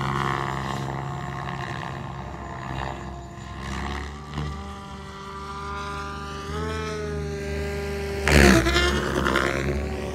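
Electric SAB Goblin Black Thunder Sport 700 RC helicopter flying, with its brushless motor and rotors, tail rotor fitted with 115 mm blades, giving a steady whine. The whine rises in pitch about six and a half seconds in. About eight and a half seconds in there is a brief loud rush from the rotor blades.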